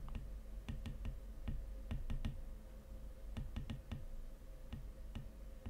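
Light, irregular tapping clicks of a stylus on a drawing tablet while handwriting, several strokes a second, with a faint steady hum underneath.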